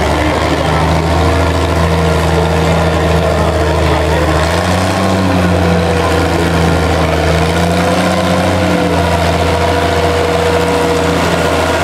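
Antique Oliver tractor's engine running hard under load as it pulls a weight sled, a steady drone that steps slightly higher in pitch about four and a half seconds in.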